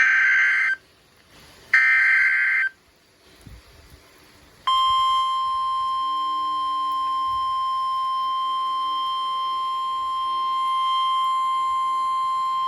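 Emergency Alert System tornado warning signals: two roughly one-second screeching bursts of the digital SAME header code, a short pause, then a steady single-pitch attention tone from the National Weather Service starting nearly five seconds in.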